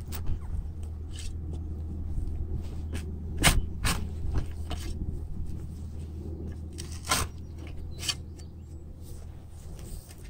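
Long-handled digging shovel cutting and levering into grassy sod, giving several sharp crunches and scrapes, the loudest about three and a half and seven seconds in, over a steady low rumble.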